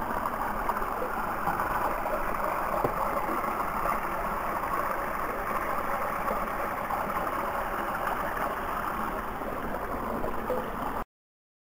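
A woodland brook rushing and gurgling over rocks as a steady hiss of water, which cuts off abruptly near the end.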